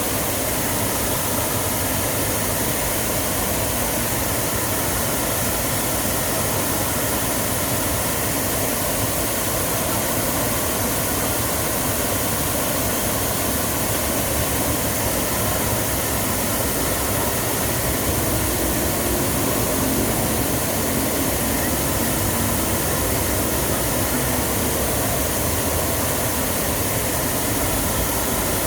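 Artificial waterfall: a steady, even rush of falling water.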